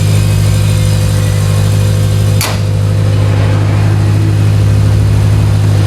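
A 2016 Subaru WRX STI's turbocharged flat-four engine running at a steady pitch while the car is driven. A single sharp knock comes about two and a half seconds in.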